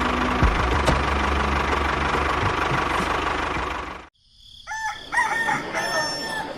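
A steady mechanical running noise with a low hum cuts off suddenly about four seconds in. Near the end a rooster crows.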